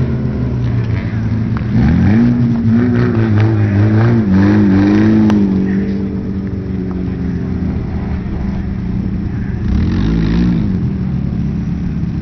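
Car engine revving hard, its pitch rising and falling several times from about two to six seconds in. It then runs on more steadily, with one more short rev near ten seconds.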